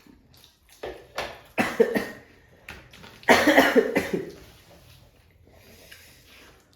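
A person coughing several times in short bursts, the loudest and longest about three seconds in.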